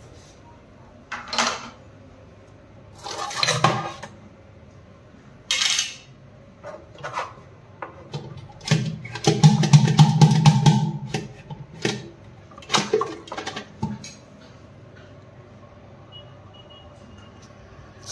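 Plastic parts inside a Hindware concealed flush cistern knocking, scraping and clattering as they are handled by hand through the flush-plate opening. The noises come as a string of separate knocks, with a longer rough rattle about nine seconds in. It goes quiet from about fourteen seconds on.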